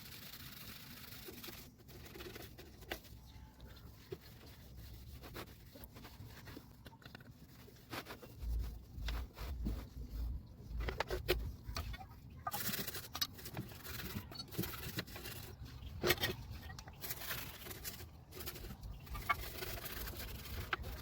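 Intermittent cleaning noises on a mixer grinder: brush scrubbing in short spells, with clicks, knocks and low thuds as its parts are handled.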